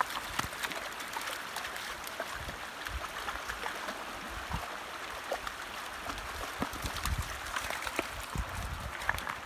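Shallow rocky creek running steadily, with scattered small splashes and clicks as two dogs wade through the water over the stones, and a few low thumps.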